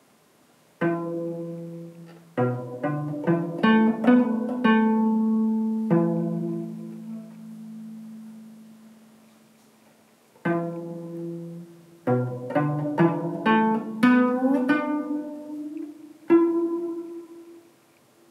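Electric cello played pizzicato: two short phrases of plucked notes, each note ringing on and fading, with a gap of a few seconds between the phrases.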